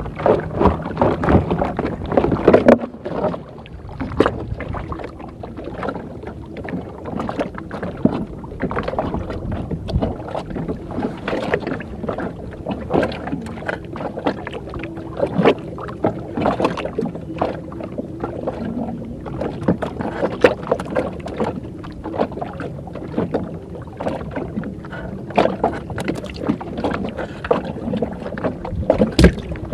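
Water slapping against the hull of a small wooden outrigger boat, with many irregular short knocks and slaps.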